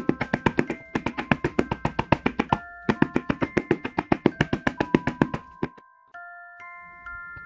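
A plastic ice cube tray rapped quickly and repeatedly on a stone counter, about seven knocks a second, to settle the cream into the cells; the knocking stops near the end. Light background music with a bell-like mallet melody plays throughout.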